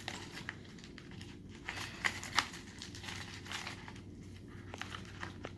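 A dull knife sawing through a chicken sandwich: irregular crackly scraping and crinkling, with two sharper scrapes a little after two seconds in.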